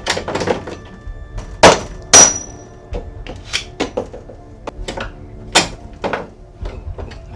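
Metal curtain rod banging and scraping against wooden trailer cabinetry: an irregular run of knocks and clatters, the two loudest close together about two seconds in, the second with a brief metallic ring.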